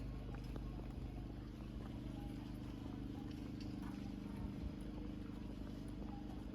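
A steady low engine hum, with faint scattered clicks over it.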